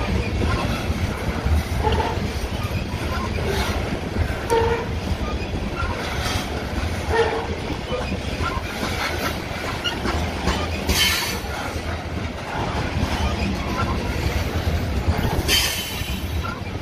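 Loaded covered hopper cars of a freight grain train rolling past: a steady rumble of steel wheels on rail with irregular clacks, and two brief high-pitched wheel squeals, about eleven and fifteen seconds in.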